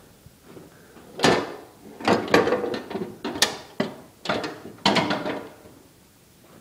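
Metal parts of a lawn tractor clanking and scraping as an unbolted part is worked loose and pulled off the frame: a run of about eight sharp knocks and rattles over some four seconds.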